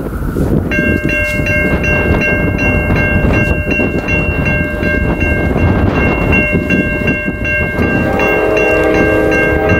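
Railroad grade-crossing warning bell dinging rapidly and steadily, starting about a second in, over wind rumble on the microphone. Near the end a locomotive's multi-chime air horn sounds.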